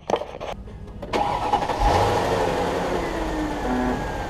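Mercedes CLS 500's V8 engine turned over by the starter and catching about two seconds in. It flares up, then its revs fall and settle into a steady idle. This is the first start after the alternator replacement.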